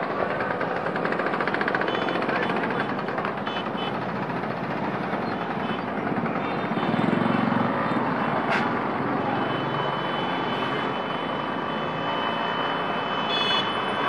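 Dense city street traffic: a steady wash of engines and tyres, with a low swell about seven seconds in and a sharp click about a second later.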